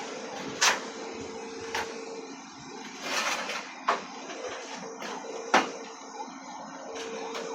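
Four sharp knocks at irregular intervals, with a brief scraping noise about three seconds in, over a steady hum that comes and goes.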